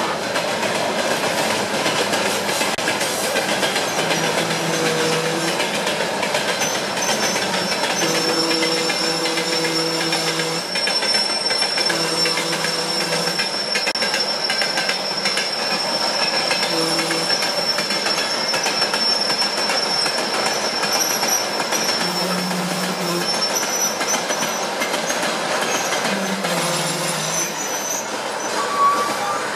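A long freight train of loaded dump cars rolling past, its wheels rumbling and clattering steadily on the rails. A high, steady wheel squeal runs through the middle stretch, and short low hums sound several times.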